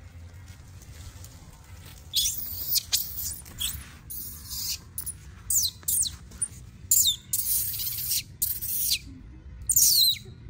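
Baby macaque screaming: loud, very high-pitched shrieks in a run of bursts, many of them falling in pitch. They start about two seconds in.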